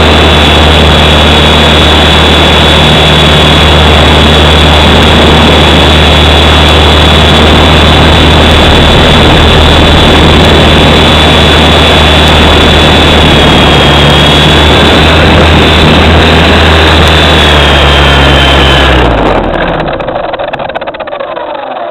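WLtoys V912 RC helicopter's electric motor and rotor running, picked up by the camera mounted on it: a loud steady drone with a high motor whine. About nineteen seconds in, the pitch falls and the sound winds down as the helicopter sets down and the rotor slows.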